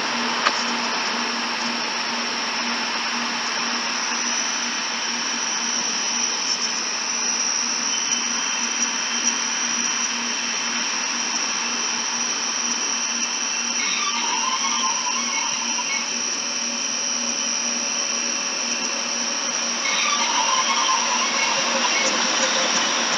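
Harsh noise-music track: a dense, steady wall of hiss with a held low hum and a high whine. Warbling, fluttering tones come in about two-thirds of the way through and again near the end, where it grows slightly louder.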